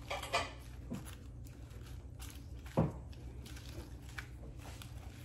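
Fork tossing salad leaves in a bowl: faint rustling and light scrapes, with one louder thump just under three seconds in.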